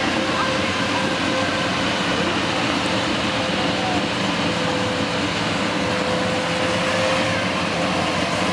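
Classic car's engine running steadily as the car drives slowly past.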